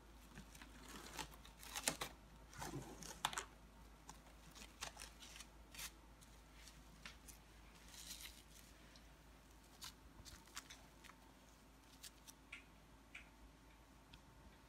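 Kirkland Stretch-Tite plastic cling wrap crinkling and tearing as hands wrap spam musubi: faint scattered rustles and crackles, busiest in the first few seconds and sparser after.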